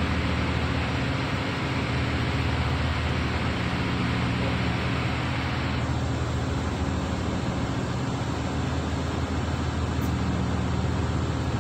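Steady machinery noise from a ship's running diesel generators: a constant hum of low tones under a broad hiss. The hissing top end drops away about six seconds in.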